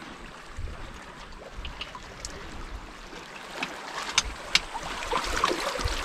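Small waves lapping and trickling among shoreline rocks and pebbles, with a run of sharp little clicks in the second half, getting louder toward the end.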